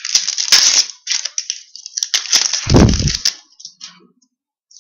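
Foil hockey card pack being torn open and its wrapper crinkled, in two crackling stretches with scattered clicks of cards being handled.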